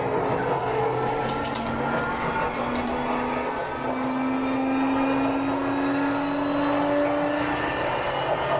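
Sotetsu New 7000 series train under power, its Hitachi GTO-VVVF inverter and traction motors whining in several tones that climb slowly in pitch, with a jump to a new pitch about a third of the way in, over the rumble of the running train. This is the train accelerating, heard from on board.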